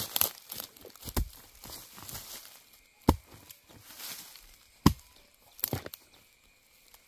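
Bamboo shoots being chopped off with a blade: about five sharp, irregular chops, the loudest a little past the middle, with light rustling of the undergrowth between them.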